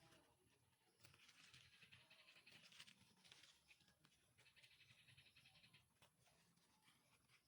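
Near silence, with two faint stretches of soft hiss about a second and four seconds in.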